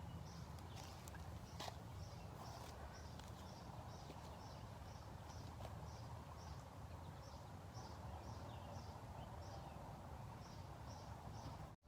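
A small high chirp repeated evenly about twice a second, over a steady low background rumble, with a few faint clicks.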